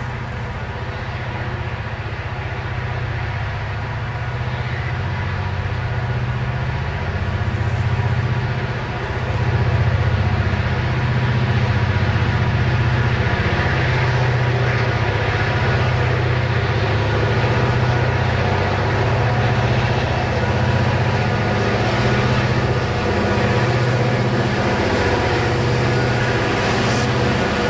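Diesel-electric locomotive working at high throttle: a steady, deep engine throb that grows louder over the first ten seconds or so and then holds.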